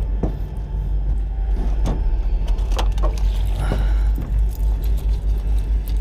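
A boat motor running with a steady low hum, under scattered clicks and knocks from handling the rod, reel and landing net as a fish is netted into the boat.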